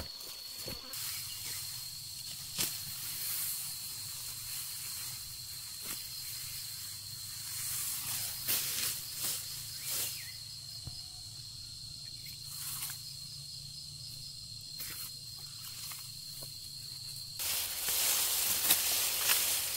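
A steady, high insect trill over outdoor ambience, with scattered short knocks and rustles. A louder hissing rush sets in near the end, and the trill drops out under it.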